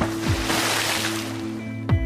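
Intro music with sustained tones, deep booming hits that drop in pitch (one shortly after the start and one near the end), and a rushing whoosh effect that fades over the first second and a half.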